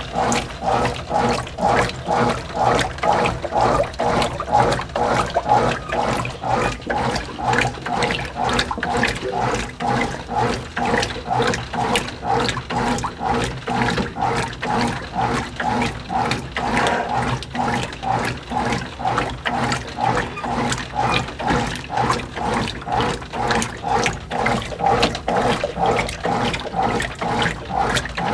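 Whirlpool WorldWasher top-load washing machine agitating a large load: the motor hums steadily while the agitator swishes the water back and forth in a regular rhythm, about twice a second.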